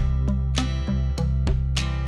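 Background music: plucked acoustic guitar with a strummed, steady rhythm.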